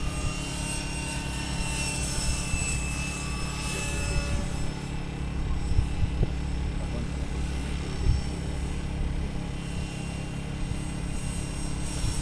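Electric RC model helicopter flying overhead: a steady rotor drone with a high motor-and-gear whine that shifts in pitch as it manoeuvres, over a low rumble.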